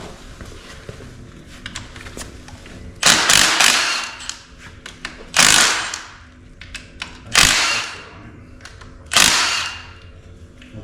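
Tool work on a diesel engine being torn down: four loud, sharp bursts about two seconds apart, each fading out over about a second.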